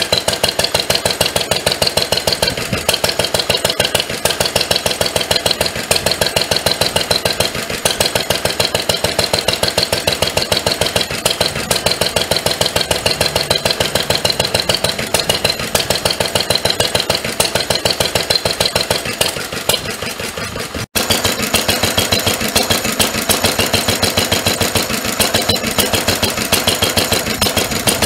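A 1957 Lister DK single-cylinder stationary engine running steadily with an even firing beat. The sound breaks off for an instant about two-thirds of the way through, then the same steady running goes on.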